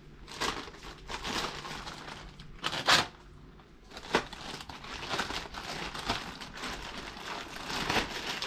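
Plastic packaging bag around a walking stick crinkling as it is handled and pulled open, with a sharp loud crackle about three seconds in.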